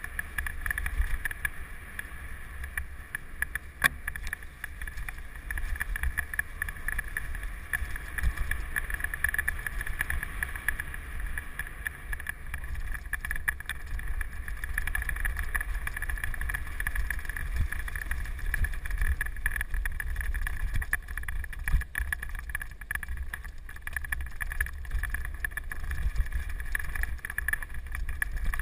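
Mountain bike riding fast down a leaf-covered dirt trail, heard from a camera mounted on the rider or bike. There is a steady low rumble of wind on the microphone and tyres on the ground, a continuous higher whirr, and scattered sharp knocks as the bike hits bumps.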